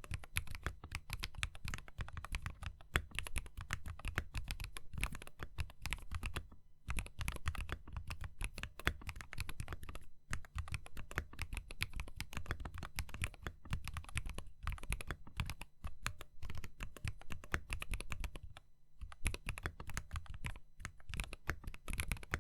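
Continuous typing on a custom chex68v5 mechanical keyboard with lubed Durock full-POM switches (UHMWPE stems), MT3 keycaps, a copper plate and a gasket-mounted stainless steel case. It gives a dense, even stream of keystrokes, with brief pauses about 7, 10 and 19 seconds in.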